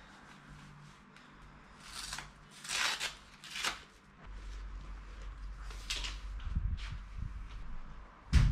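Velcro straps of a hinged knee brace being pulled and fastened: a few short, sharp rasps about two to four seconds in. After that a steady low hum with a few scattered knocks, the loudest near the end.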